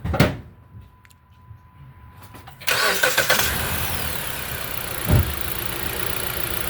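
A thump, then about two and a half seconds in the 2014 Jeep Compass's four-cylinder engine starts and settles into a steady idle. The engine has a misfire on cylinder number 3.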